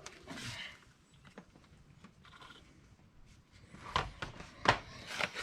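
A quiet stretch, then a few sharp metallic knocks and clicks of tools and parts being handled, the loudest about four and a half seconds in.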